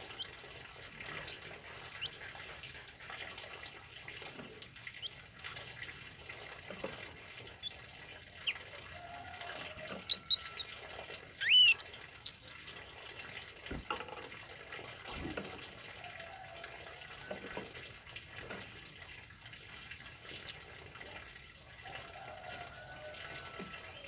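Male scarlet-headed flowerpecker giving short, high, thin chirps and twitters scattered throughout, the loudest a rising chirp about halfway through, over a steady hiss.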